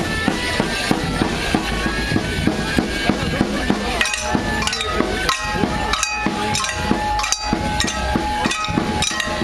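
A folk dance tune playing, with sharp wooden clacks of Morris dancers' sticks striking together over it at irregular intervals.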